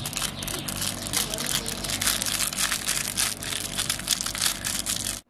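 Plastic Indomie seasoning sachets crinkling as they are torn open and squeezed out by hand: a dense, continuous run of crackles.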